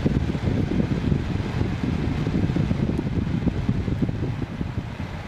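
Enermax T.B. Vegas Quad 180 mm case fan running at its top 1200 rpm switch setting: a steady rushing hum of moving air, heaviest in the low end, easing slightly near the end.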